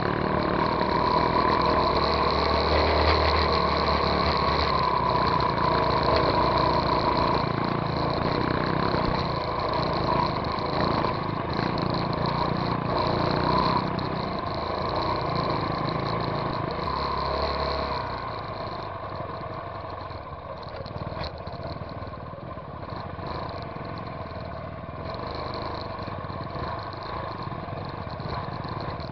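Trail dirt bike engine running under throttle on a rough dirt track, heard from on the bike. It runs louder at first and eases off about two-thirds of the way through.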